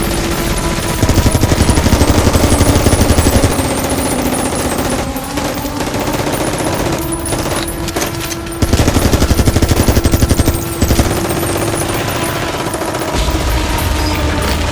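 Automatic machine-gun fire in long rapid bursts, broken by a few short pauses, over a steady low drone.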